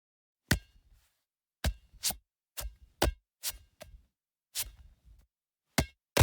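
A series of about ten sharp knocks or impacts at uneven intervals, each followed by a brief low rumble.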